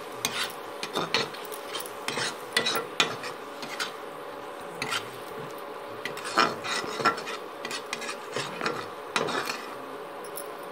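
A metal spoon stirring and scraping thick onion-tomato masala against a metal kadhai in irregular strokes as the masala is fried, a stage that runs until the oil separates.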